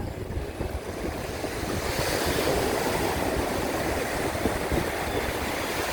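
Surf breaking and washing up the shore, swelling about two seconds in and easing off, with wind buffeting the microphone.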